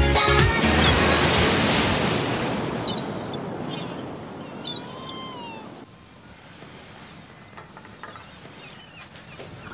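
Dance music stops at the start, giving way to the rush of sea surf with a few seagull cries about three to five seconds in. The surf fades, and about six seconds in it drops to quiet room tone.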